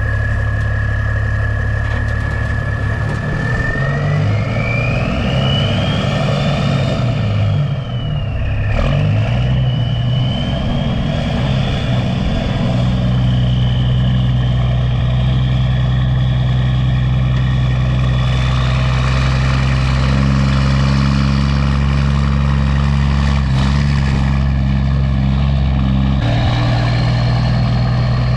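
Semi truck's diesel engine pulling under load, a high whine rising with the revs. The sound dips briefly about eight seconds in, like a gear change, then builds again and settles into a steady cruise.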